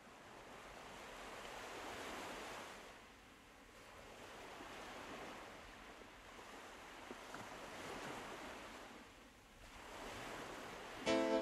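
Soft rushing noise like ocean surf, swelling and fading about every three seconds. Plucked guitar music comes in at the very end.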